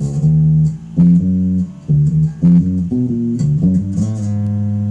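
Homemade five-string electric bass with humbucker pickups played through an amp: a run of plucked notes, ending on a long held note near the end. Both humbuckers are on with no coil split and the tone knob at minimum, which makes it sound a bit boomy.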